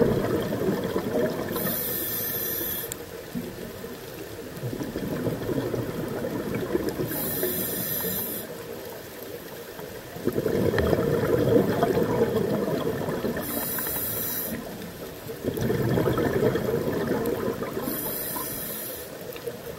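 Scuba diver breathing through a regulator underwater: four short high hisses of inhaled air, about every five to six seconds, with long bubbling rushes of exhaled air between them.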